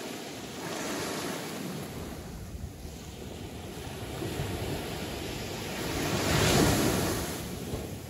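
Caribbean Sea waves washing onto the shore in a steady surf, with a bigger wave breaking about six and a half seconds in.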